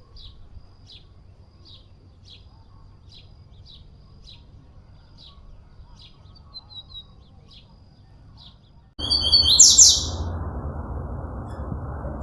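Caged songbird giving short, high chirps about twice a second. About nine seconds in, the sound cuts abruptly to a louder bird call over a steady rushing background noise.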